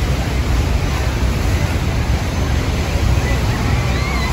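Steady rush of wind and churning river water from a tour boat's open deck, with wind buffeting the microphone and a deep rumble underneath.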